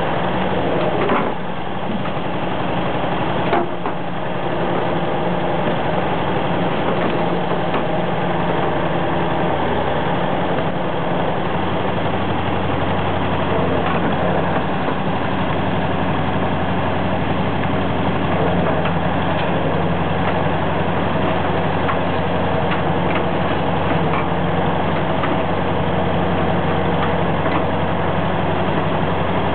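Diesel engine of a Soviet EO-5123 front-shovel hydraulic excavator running steadily as it works its bucket. There are two sharp knocks in the first four seconds, and the engine's low note grows stronger about eleven seconds in.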